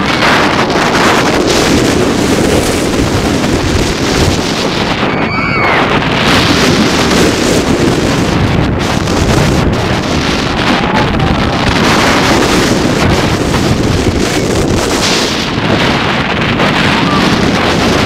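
Loud, steady rush of wind over a head-mounted camera's microphone as a rider goes through a Bolliger & Mabillard wing coaster's course at speed. A brief high squeal cuts through about five seconds in.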